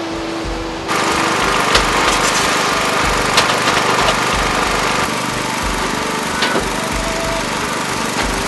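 A small engine running steadily, with scattered sharp clicks and clinks over it, in the noise of a brick-paving site. Background music plays for the first second before it.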